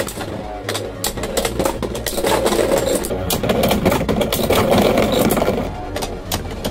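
Two Beyblade tops, Dragoon V and Strike God Valkyrie, spinning in a plastic Beyblade X Xtreme Stadium: a steady whirring scrape of their tips on the plastic floor, broken by many sharp clicks and clacks as they hit each other and grind along the toothed rail.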